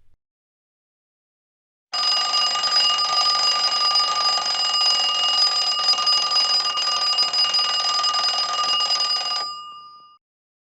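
Old telephone's mechanical bell ringing in one long continuous ring, starting about two seconds in. It stops near the end, leaving the bell tones to ring out briefly.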